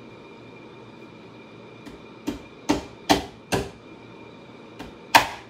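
Small hammer driving nails through a sheet-metal seat strainer into a saddle tree: after about two seconds, a run of four or five sharp taps, a short pause, then two more near the end.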